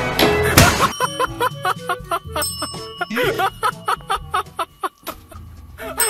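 Background music. A loud, dense passage cuts off about a second in. It gives way to light, bell-like plinking notes in a quick, even rhythm.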